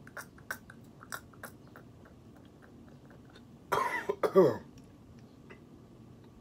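A few small wet mouth and dropper clicks as a full dropper of hot pepper tincture goes into the mouth, then about four seconds in a short, loud cough and throat-clearing, its voiced end falling in pitch, as the tincture hits the throat.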